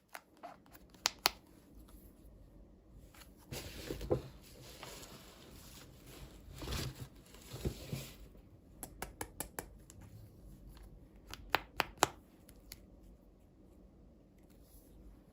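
Hands handling toy packaging and small plastic dolls: scattered sharp clicks and taps, with a few seconds of rustling packaging in the middle.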